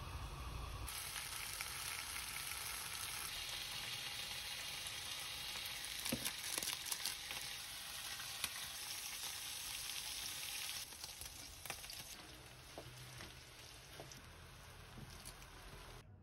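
Instant noodles cooking in a pan on the stove, hissing and sizzling steadily, with a few sharp clicks; the sizzle is quieter in the last few seconds.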